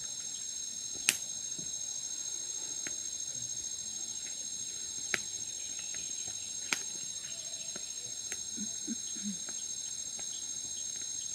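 Steady high-pitched chorus of insects, with a few sharp pops from a tepee log campfire just catching, the loudest about a second in.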